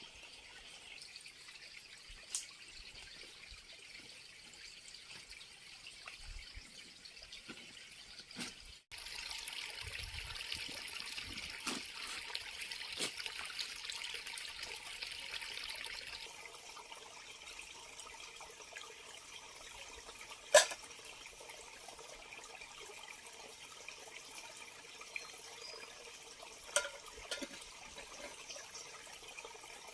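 Water trickling steadily, with a few sharp clicks or knocks.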